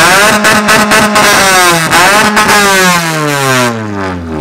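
Car engine revved hard in a rev battle. It is held at high revs with short stutters and dips, loud enough that a sound meter at the exhaust reads over 120 dB, then let fall back to idle near the end.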